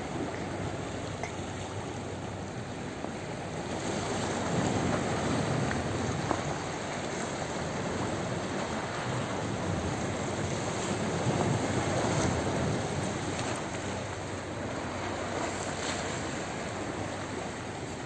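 Calm sea water washing and lapping against a rocky shore, with wind on the microphone. The surf swells louder twice.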